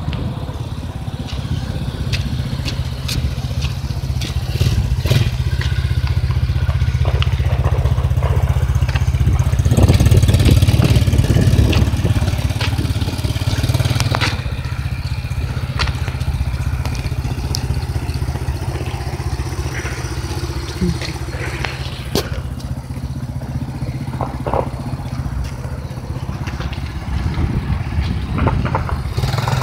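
Engine of a Tao Tao 125cc ATV, a small single-cylinder four-stroke, running steadily at low revs, with a few scattered clicks and knocks over it.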